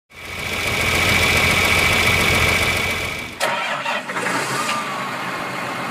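Farm tractor's engine starting: about three seconds of steady whine over fast low pulsing, then an abrupt change with a click to a lighter running sound.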